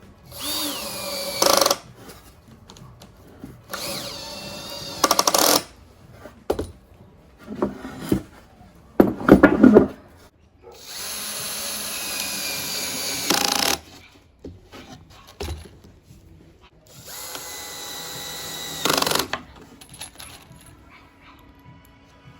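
Drill-driver driving screws into plywood: about five separate runs of a motor whine, each lasting one to three seconds and ending louder as the screw seats. The torque is set low so the screws don't tear the plywood.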